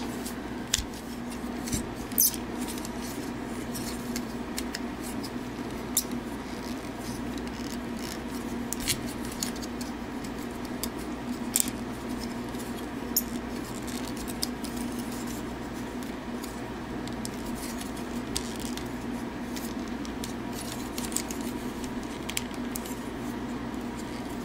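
Hard plastic parts of a transformable action figure clicking and snapping irregularly as they are folded and tabbed together by hand, over a steady low hum.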